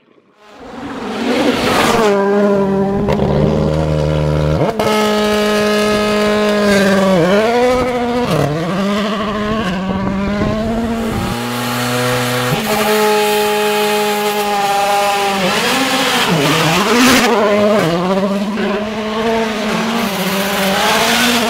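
Rally car engine at full throttle, growing loud over the first second, its revs dropping sharply and climbing again several times.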